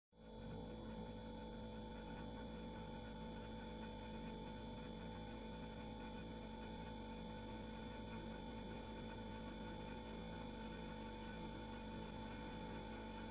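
Refrigerator running with a steady, faint humming and buzzing, several fixed tones over a low rumble. It cuts out briefly at the very start and fades back in within half a second.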